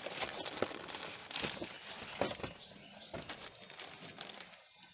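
Clear plastic wrapping around a new air filter crinkling and rustling as it is handled and taken out of its cardboard box, with irregular crackles that are busiest in the first three seconds and thin out toward the end.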